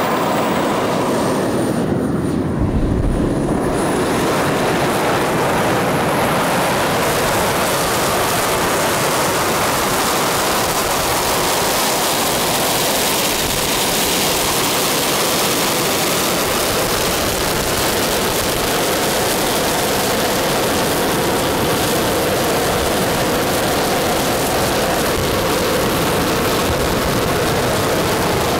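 Twin model jet turbines of a quarter-scale RC Convair F2Y Sea Dart running at high power: a steady, loud jet noise mixed with the hiss of spray as the seaplane accelerates across the water on its hydro-skis.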